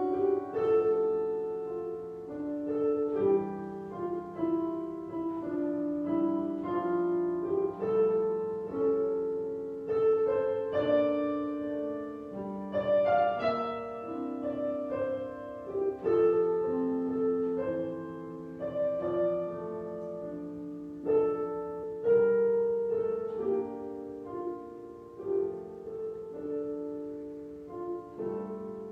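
Solo piano playing a slow piece, held chords under a melody, the notes changing about once a second.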